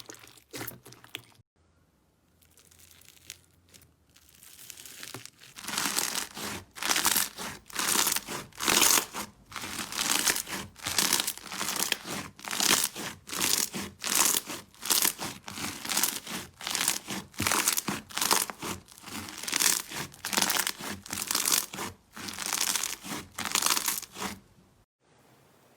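Slime being squeezed and pressed by hand, giving a crackling squish about once a second. The pressing starts after a few quiet seconds and stops just before the end.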